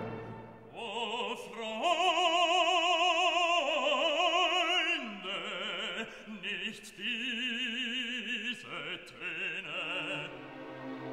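Background music: an operatic singing voice holding long notes with strong vibrato over classical accompaniment, in phrases that change pitch around the middle and again near the end.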